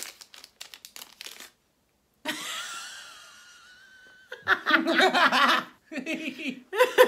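Plastic snack wrapper crinkling as it is handled, for about a second and a half. After a short gap comes a hissy noise with a thin rising tone, then laughter over the last couple of seconds.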